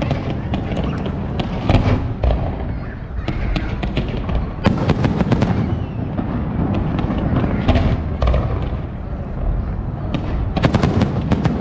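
Fireworks display: a continuous rumble of bursting shells with quick volleys of sharp cracks, densest about halfway through and again near the end.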